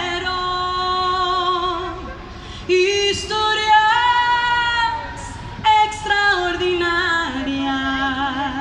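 A woman singing long, held notes with vibrato, in three phrases with short pauses between them and no steady beat behind her.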